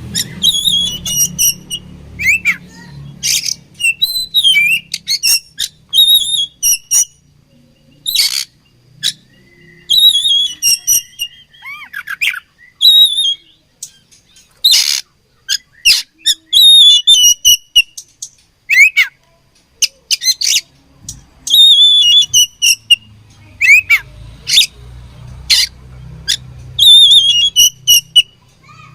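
Oriental magpie-robin (kacer) singing: loud, sharp call notes alternate with falling whistled phrases, and the same phrase comes back every couple of seconds.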